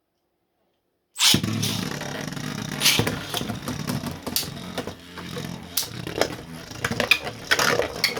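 Two 3D-printed Beyblade tops are launched into a stadium about a second in, then spin and grind against the floor and each other, with sharp clashes every second or so.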